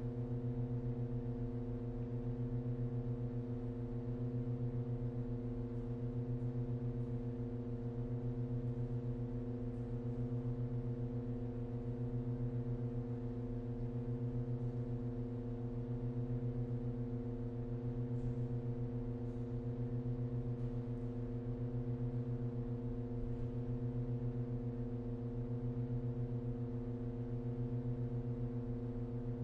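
Pipe organ holding a steady low chord of sustained tones, unchanging throughout, with a slight even pulsing in loudness.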